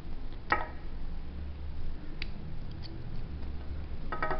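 Metal clinks and ticks from a Mottura Champions C28 multi-point lock cylinder as its rotor is drawn out of the body: one ringing clink about half a second in, a few lighter ticks, and a quick cluster of clinks near the end.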